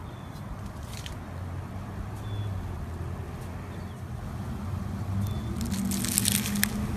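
Slime being pressed and squeezed by hand, giving small crackles about a second in and a denser run of louder crackling pops near the end.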